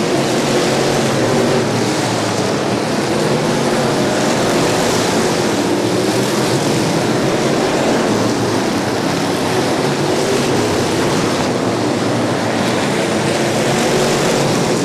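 Street stock race cars' engines running on a dirt oval: a steady, loud drone of several cars together, their engine notes wavering as they circle.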